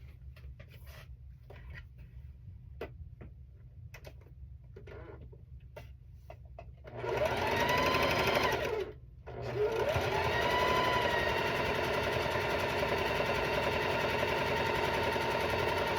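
Sewing machine stitching a seam. After a few seconds of soft clicks, its motor starts about seven seconds in with a rising whine as it speeds up, stops briefly, then starts again and runs steadily until it stops near the end.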